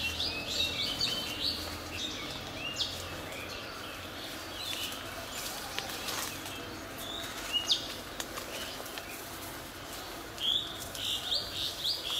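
Small birds chirping in clusters of quick high notes that come again every few seconds, over a steady low background hum.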